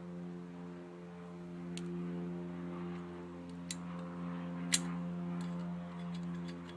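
Metal clutch plates clinking as they are handled, a few sharp clicks with the loudest about two-thirds of the way in, over a steady background hum.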